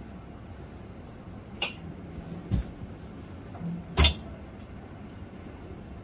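Three sharp knocks with a ringing edge, spaced about a second apart with the last the loudest, from rescue work on a car crushed by a fallen crane, over a steady low background rumble.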